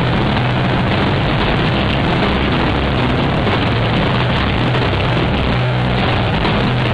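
A live rock band playing: electric guitar, electric bass and drums together, loud and dense, with a bass line holding low notes that shift every second or so.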